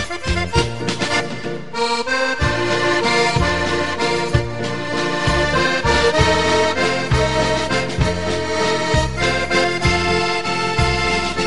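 Accordion music: a tune of held chords over a bass that repeats at a steady beat.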